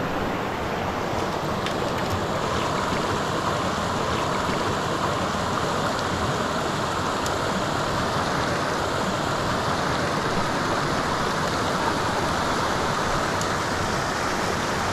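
Small creek's water running, a steady rushing hiss.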